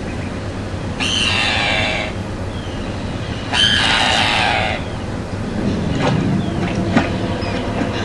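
A tern colony calling, played from a nature documentary through a laptop speaker: a steady din of birds with two louder stretches of harsh calls, about a second in and near the middle.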